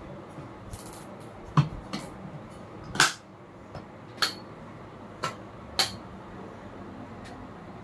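Hard plastic and wire parts of a fishing gun clicking and knocking against each other and the counter as a wire foot stirrup is pushed into the hole at the gun's butt. There are about six sharp knocks over a few seconds, the loudest about three seconds in.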